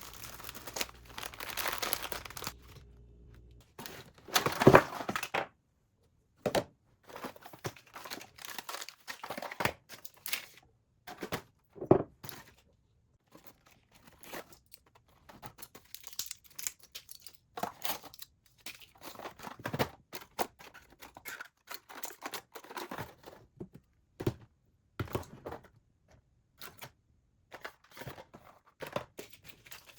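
Hands handling and sorting small household items: irregular crinkling, tearing and rustling of packaging with scattered light knocks, one louder burst about five seconds in.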